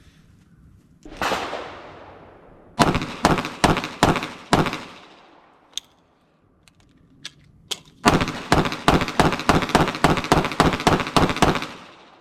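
Glock pistol shots: one report with a long tail about a second in, then a quick string of about six shots. After a few small clicks comes a rapid string of about fifteen shots, roughly four a second.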